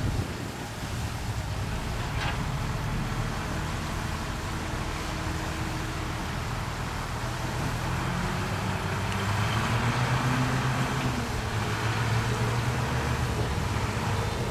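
Diesel engine of earthmoving machinery running steadily, its revs and loudness rising a little about nine seconds in and easing back a couple of seconds later.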